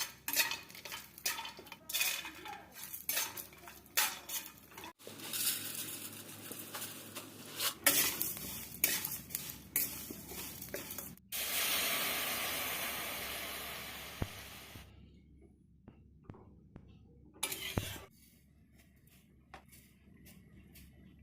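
Semai (vermicelli) cooking in a pan: a spoon clinking and scraping against the pan while stirring, then a loud sizzle that starts suddenly about eleven seconds in and fades over a few seconds, followed by a few light taps.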